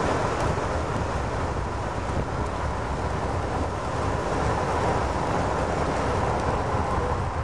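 Steady low rumble and hiss inside a moving vehicle: engine, tyre and wind noise.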